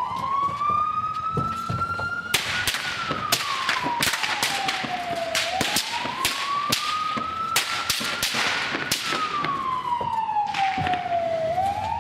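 Ambulance siren wailing, rising and falling slowly, about once every six seconds. From about two seconds in until near ten seconds, a dense run of sharp cracks and rattles sounds over it.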